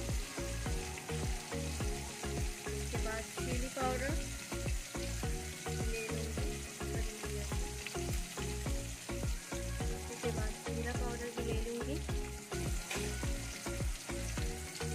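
Onion and tomato masala sizzling in hot oil in a kadhai, stirred and scraped with a wooden spatula, with many short knocks of the spatula against the pan.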